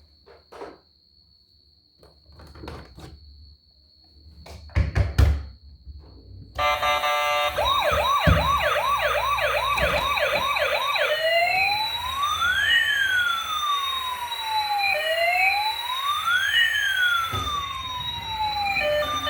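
A few sharp clicks and knocks, then the electronic siren of a toy emergency vehicle: a fast warbling yelp of about two cycles a second, changing about halfway to a slow rising and falling wail.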